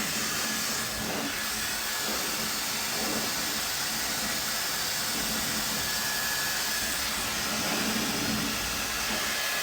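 Tideway high-speed hair dryer running steadily while drying hair: an even rush of blown air with a faint high whine.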